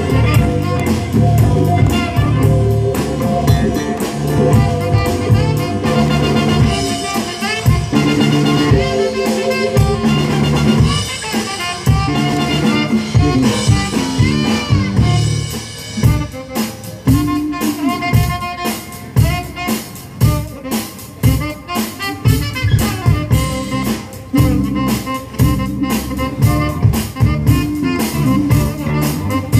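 Live band playing, with a bass guitar carrying a strong low line under a drum kit's steady beat, and a melody instrument playing over them.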